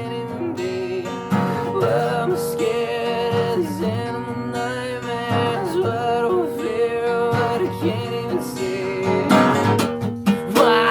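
Music: a guitar-led original grunge song, with bending pitched lines over a steady strummed accompaniment.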